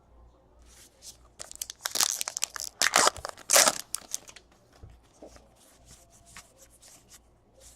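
A baseball card pack wrapper being torn open and crinkled: a quick run of sharp crackling rips over about three seconds, starting a little over a second in, then only faint handling.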